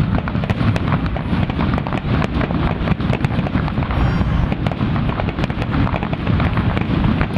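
Fireworks finale: aerial shells bursting in rapid succession, a dense, continuous barrage of booms and crackles, many a second with no pause.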